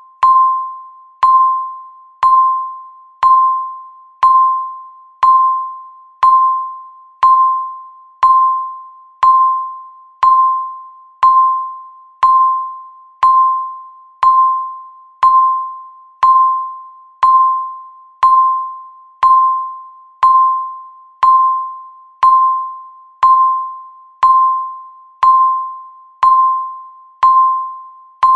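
Countdown timer beep, one per second: a short ringing tone of a single pitch that starts sharply and fades quickly, repeated evenly to mark each second.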